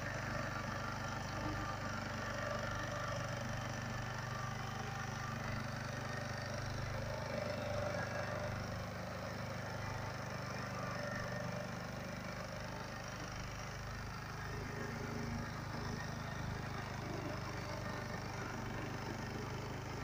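Small engine of a walk-behind two-wheel tractor running steadily as its rotary tiller works the soil, a low even hum.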